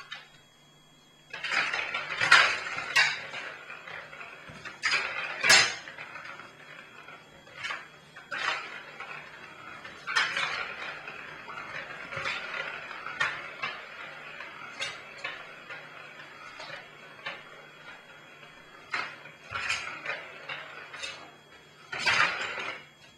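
A ball rattling and rolling inside a plastic ring-track cat toy as kittens bat at it, in irregular bursts of clattering with sharp plastic clacks. It starts about a second in, and the loudest bursts come about two seconds in, about five seconds in and near the end.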